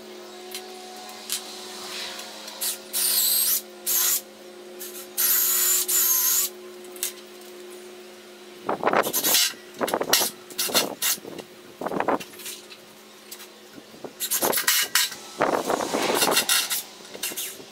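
Cordless drill/driver driving screws into a wooden post in two short runs with a whining motor. A steady low hum sits underneath at first, and in the second half come irregular scraping and knocking noises.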